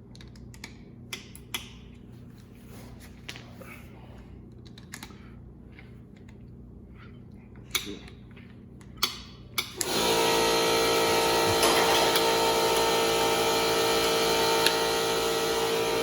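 A few light metal clicks and taps from hand tools, then about ten seconds in a loud, steady, evenly pitched machine hum starts suddenly and keeps running.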